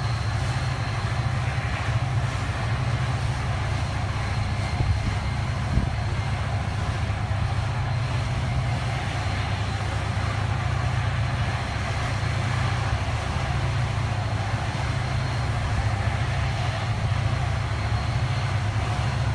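Steady low drone of a riverboat's engines heard on deck, with a faint steady high whine above it.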